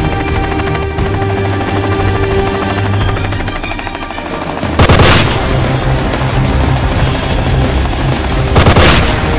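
Two short bursts of automatic rifle fire, about four seconds apart, over the steady running noise of a TH-57 helicopter on the ground with its rotor turning.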